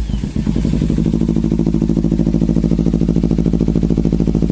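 Kawasaki Z300's parallel-twin engine breathing through an aftermarket Akrapovic exhaust, just started: uneven at first, it settles into a steady, evenly pulsing idle within the first second.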